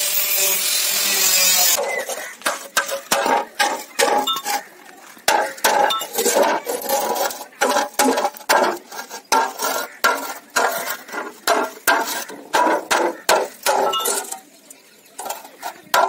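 An angle grinder cuts through thin sheet steel for about two seconds and winds down. Then a hand hammer strikes a curved sheet-steel panel lying on the ground, about two blows a second, each with a short metallic ring, with a brief pause near the end.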